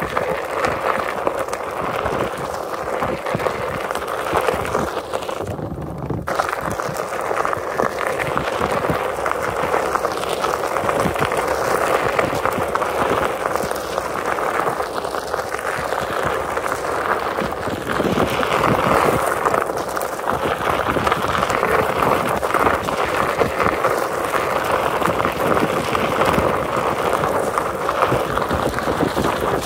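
Onewheel Pint X electric skateboard rolling along a gravel and wood-chip trail: steady rolling noise from the tyre on the loose surface.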